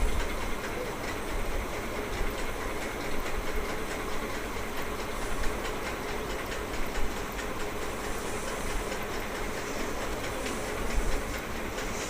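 Steady rumbling, hissing noise with a few brief louder knocks.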